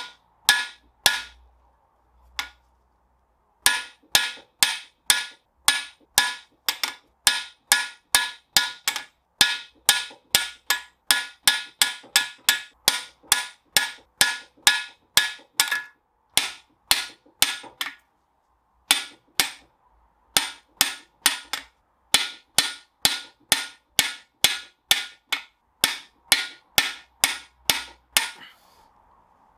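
Steel hammer blows on a hand impact driver seated in the threaded oilway plugs of a Land Rover 2.25 petrol cast iron engine block, about two strikes a second with brief metallic ringing, in runs broken by short pauses, shocking the plugs loose.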